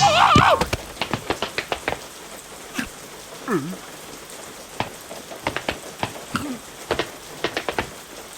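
Cartoon sound effects: a short warbling squeak of a character's voice at the start, then scattered light ticks and taps, some in quick clusters like raindrops pattering, with a small falling squeak partway through.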